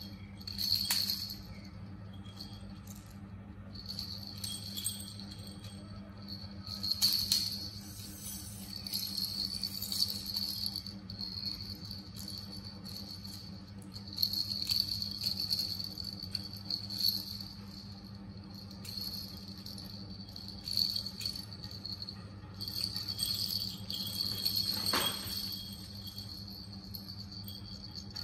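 Plastic baby rattle toys shaken and handled by a baby monkey, jingling in uneven bursts, with a few sharp knocks as a toy strikes something.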